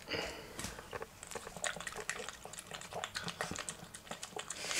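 Pug puppy licking and smacking yogurt off a spoon: a quick, irregular run of small wet licking clicks.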